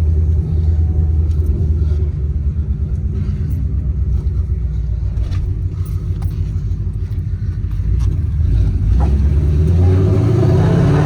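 2018 Ford Mustang GT's 5.0-litre V8, straight-piped from the headers through open exhaust dumps, running low and steady. It then accelerates, its pitch climbing from about eight seconds in.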